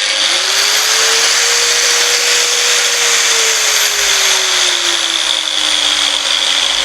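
Electric grinder starting suddenly and running at reduced speed through a speed-controller module set low. Its motor whine climbs in pitch over the first two seconds, then slowly sinks, over a steady hiss.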